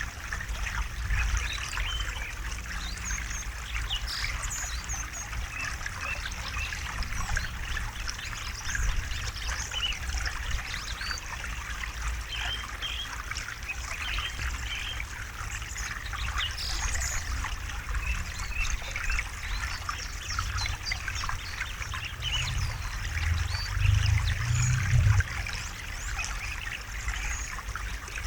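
A small river trickling and babbling steadily over stones, with a steady low rumble of flowing water. Birds chirp here and there, and the low rumble swells louder briefly near the end.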